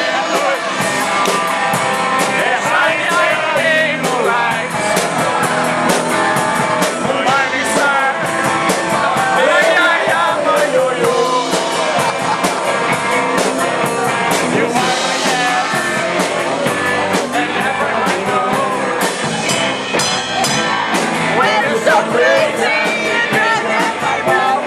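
Rock band playing live with a singer's voice over the instruments, loud and continuous with a steady beat.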